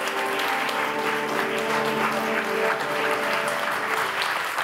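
Audience applauding a tap dance company's curtain call, with music of held notes playing underneath that fades out near the end.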